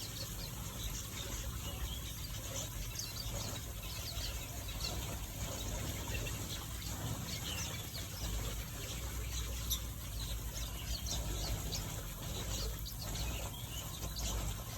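A flock of small finches in an aviary chirping and twittering, many short high calls overlapping, over a steady low rumble.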